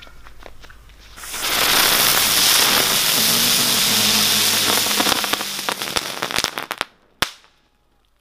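Spinning ground firecrackers (mercon kiciran) hissing and crackling as they burn on the asphalt, starting about a second in and fading out after about six seconds, followed by a single sharp snap. No bang comes: they fizzle out without exploding.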